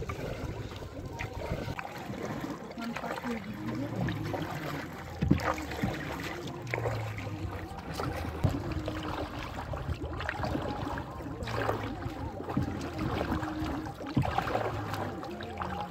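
Hand paddles of a shikara dipping and pulling through river water, with splashes and irregular strokes every second or two, the loudest about five seconds in.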